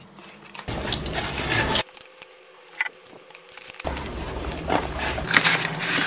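Cardboard packaging being handled and opened: rustling and scraping as the inner box slides out of its sleeve, with a quiet pause of about two seconds midway and a few sharper scrapes near the end.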